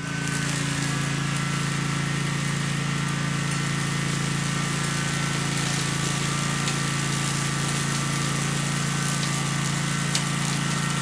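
Walk-behind brush mower's small engine running at a steady speed with a constant hum, starting abruptly.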